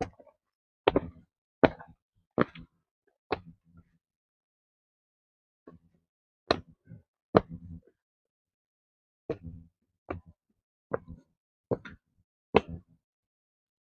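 Footsteps on a walking track, one step about every three quarters of a second, in runs of several steps with short pauses between.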